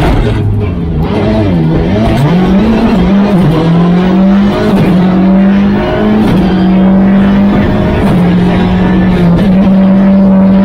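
Car engine heard from inside the car: the revs drop and waver through a corner, then climb and hold a high, almost steady note.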